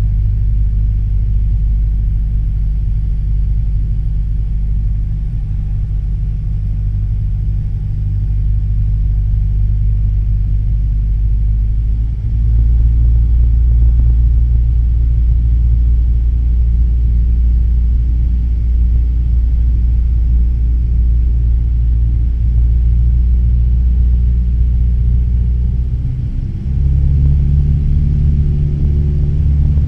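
Cessna 172 piston engine and propeller droning inside the cabin during slow-flight manoeuvres. The drone steps up louder about twelve seconds in, dips briefly near the end, then comes back louder again.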